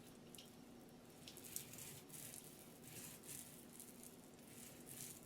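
Paint roller spreading paint on a wall: a faint, sticky crackling hiss in repeated strokes, about one a second.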